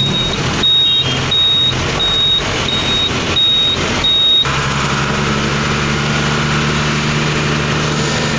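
Inside a moving truck's cab, a high electronic beeper sounds about twice a second over the running engine and road noise. The beeping stops about four seconds in, leaving the truck engine's steady drone.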